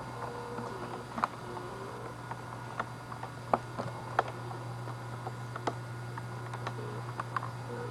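Handheld camcorder handling noise: scattered sharp clicks and taps at irregular intervals over a steady low hum.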